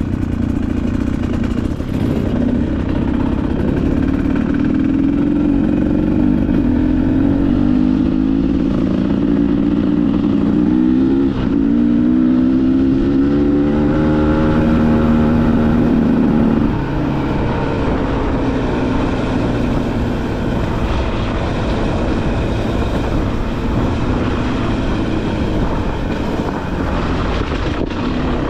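Dirt bike engine running while riding, its revs climbing over several seconds, dipping briefly about eleven seconds in, then climbing and holding higher before the throttle eases off around seventeen seconds in.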